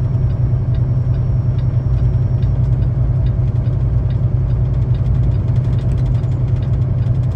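Semi truck's diesel engine running steadily at low speed, heard from inside the cab, a deep even drone while the truck crawls downhill in a low gear. Light ticking sounds several times a second over it.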